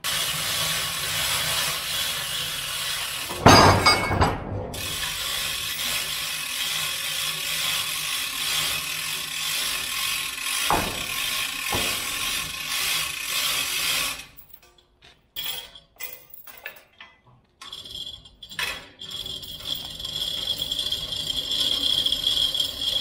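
Hand-operated chain hoist being worked: its chain rattles and its ratchet clicks as a heavy steel lathe bed is lifted and rolled over in a sling. There is a loud metal clank about three and a half seconds in, and a few seconds of only scattered clinks past the middle.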